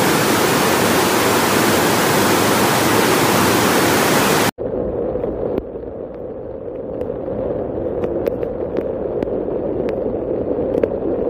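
Floodwater pouring down a flight of stairs, a loud, even rush of water. About four and a half seconds in it cuts off sharply to a quieter, duller steady rush of heavy rain and flowing floodwater, with a few faint clicks.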